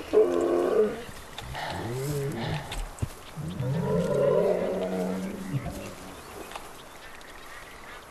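A wounded man groaning in pain: a few short strained groans, then one long drawn-out groan that stops a little before two-thirds of the way through, leaving it much quieter.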